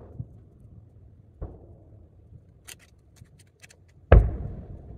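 Large shakudama (30 cm) aerial firework shells bursting far off: a lighter boom about a second and a half in, a few faint clicks, then a loud deep boom near the end that trails away.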